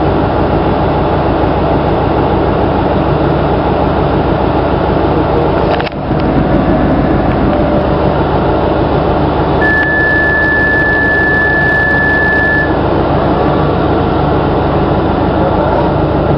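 Steady hum of a regional diesel train's engine and ventilation as it stands at a station. About ten seconds in, a single steady beep sounds for about three seconds: the door-closing warning tone, with the door shut by the end.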